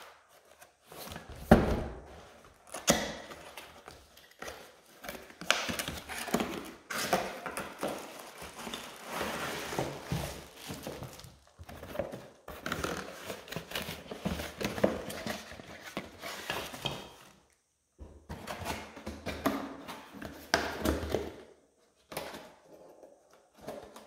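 A cardboard retail box being opened and unpacked by hand: cardboard flaps and inserts scraping and knocking, and plastic wrapping rustling, with a sharp knock about a second and a half in and a couple of short pauses.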